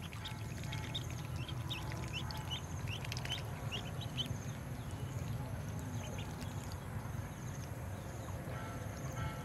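Ducklings peeping in many quick, high chirps, busiest in the first few seconds and sparser after, over a steady low rumble.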